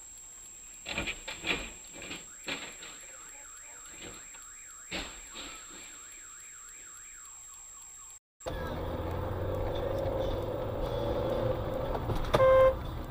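A car alarm warbling rapidly up and down, with a few sharp knocks just before and during it. After a cut, steady road and engine rumble inside a moving car, with a short car horn beep near the end.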